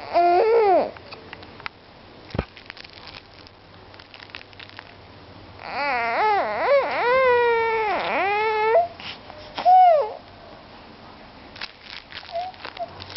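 High, wavering whining cries in three bursts: a short one at the start, a longer wailing stretch from about six to nine seconds, and a short cry near ten seconds, the sound of a fussing, whining little one.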